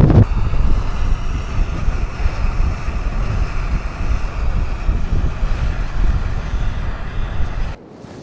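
Wind buffeting the microphone: a steady low rumble that cuts off abruptly near the end.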